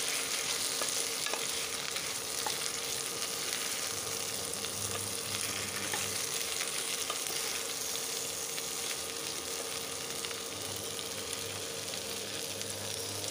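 Mixed vegetables frying in hot oil and ghee in a pressure cooker, a steady sizzle, with a wooden spatula stirring them through and giving a few faint taps against the pot.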